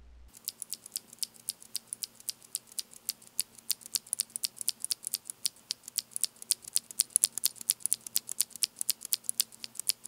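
Cherry MX tactile click switch pressed over and over by finger, giving a rapid run of sharp, high clicks, several a second.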